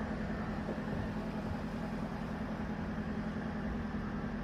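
A steady low mechanical hum with a rumble beneath it, like an idling engine.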